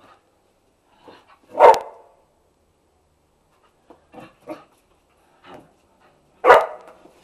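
Staffordshire terrier barking in play: two loud single barks, about a second and a half in and near the end, with a few quieter yips between.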